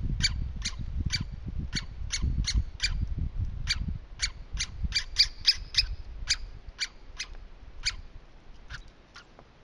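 Chipmunk chipping: a long run of short, sharp, high chip calls repeated about two to three times a second, thinning out near the end. A low rumble lies under the first few seconds.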